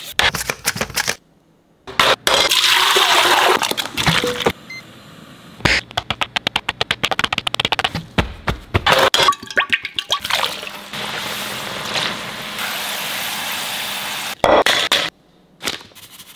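A quick-cut run of kitchen prep sounds: potato peeler scrapes, a rush of running water, a fast run of crisp cutting clicks, a long steady hiss, and near the end crinkle-cut potato chips clinking in a glass bowl as powder is shaken over them.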